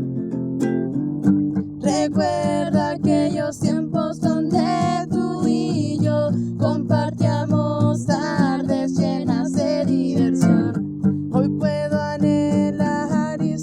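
Acoustic guitar strumming chords, with a sung vocal line coming in about two seconds in.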